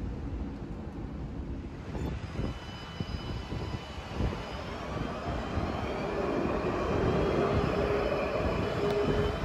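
Alstom Citadis 305 tram accelerating past close by, its traction motors giving a whine that rises slowly in pitch over the rumble of the wheels on the rails. The sound grows louder through the second half.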